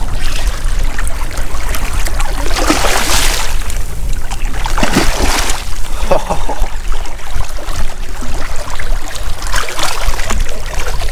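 Water splashing and sloshing as a hooked striped bass thrashes at the surface, in several bursts: about two and a half seconds in, around five to six seconds in, and near the end. A steady low rumble runs underneath.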